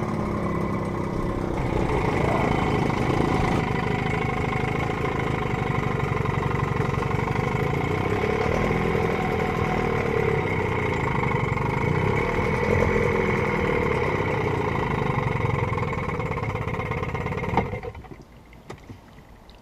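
An engine running steadily, its pitch rising and falling a little under load, then cutting off suddenly about 17 and a half seconds in.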